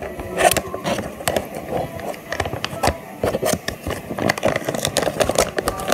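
A plastic bag crinkling and rustling close to the microphone as it is handled, with irregular sharp clicks and knocks throughout.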